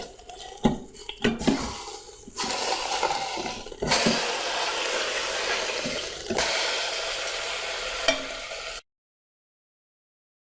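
Beef roast sizzling as it browns in hot olive oil in an Instant Pot's stainless steel inner pot, with a few knocks as the roast is rolled against the pot in the first couple of seconds. The sizzle cuts off suddenly into silence near the end.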